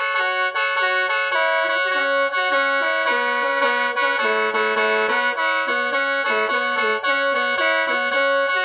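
Khaen, the Lao bamboo free-reed mouth organ, played solo: a quick stepping melody of short notes over steady drone notes that sound without a break.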